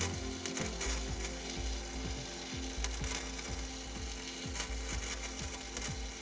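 Harbor Freight Titanium welder's arc crackling and sizzling steadily while a nut is welded onto a rusted bolt, so the seized bolt can be turned out.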